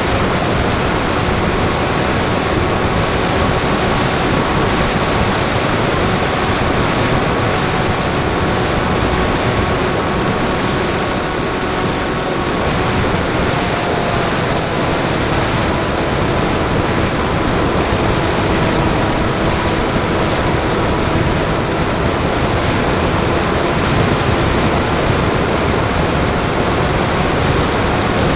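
Airflow rushing over the microphone of a camera on board a Bixler 3 electric RC airplane in flight, under the faint steady whine of its motor and propeller. The whine drops slightly in pitch about halfway through.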